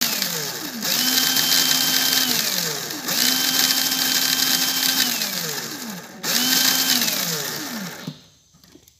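Electric drive of a homemade RC truck chassis spinning its drive shaft and gears, a whine with gear noise. It runs up three times, each time holding a steady pitch for about a second and a half before winding down in pitch as it coasts. It is already winding down at the start and stops just after eight seconds in.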